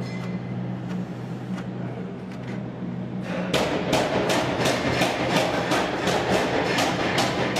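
Steady low machine hum, joined about three and a half seconds in by a quick, regular run of hammer blows, about three a second.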